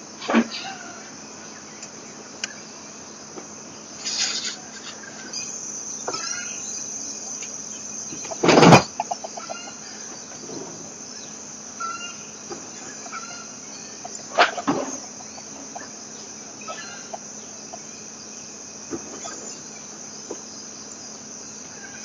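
Red junglefowl clucking and calling over a steady high drone of insects, with several short, sharp sounds, the loudest about eight and a half seconds in.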